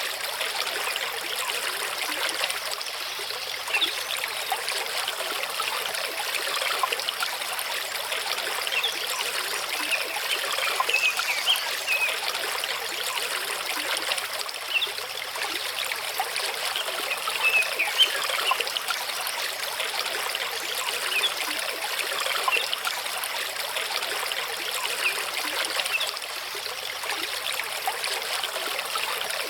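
Mountain stream running over rocks, a steady rush of water with small splashes and trickles through it.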